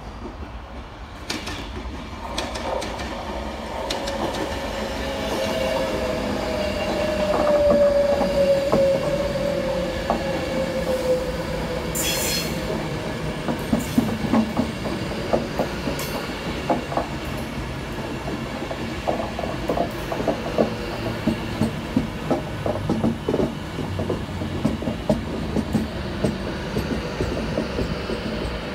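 Class 390 Pendolino electric train rolling past on the rails: a rising rumble with a falling whine about five seconds in, then a long run of wheel clicks over rail joints and pointwork as the coaches go by.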